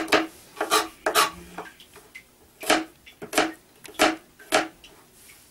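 Knife chopping garlic on a plastic cutting board: about seven sharp knocks of the blade on the board, unevenly spaced, with a pause of about a second near the middle.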